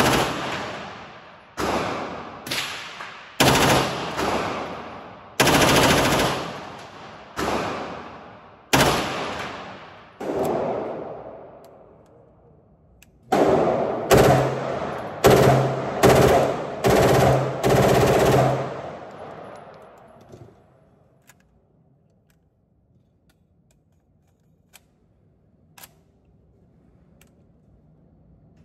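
H&K MP5K 9mm submachine gun firing repeatedly, single shots and short bursts, each crack trailing off in a long echo. The firing stops about two-thirds of the way in, leaving near quiet with a couple of faint clicks.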